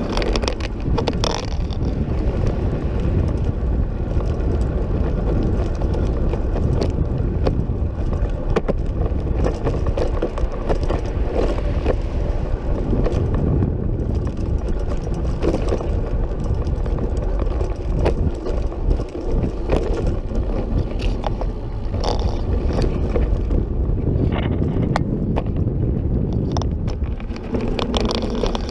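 Recumbent trike rolling along a paved path: a steady low rumble of wind on the bike-mounted microphone and tyre noise, with scattered small clicks and rattles from bumps in the pavement.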